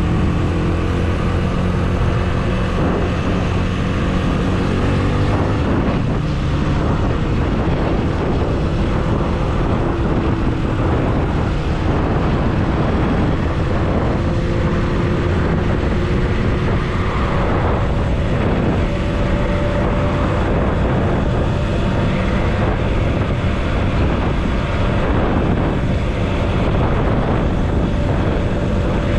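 Motorcycle engine running steadily as it is ridden along a street, its pitch drifting a little with speed, over a steady rush of wind and road noise.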